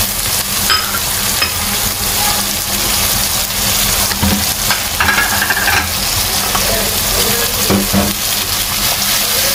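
Onions, tomatoes and ground spices sizzling in hot oil in a nonstick kadai, stirred with a slotted spatula. There are a few brief knocks and a short scrape about halfway through.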